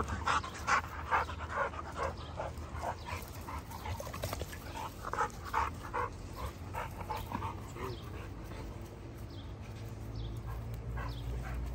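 American Bully dogs yipping and whimpering in quick, short, high calls, many at first and thinning out after about six seconds, over a steady low hum.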